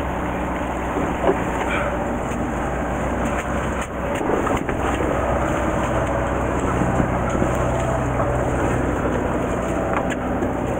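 Fishing boat's engine running steadily, a low hum under wind and water noise, with a few faint knocks about four seconds in and again near the end.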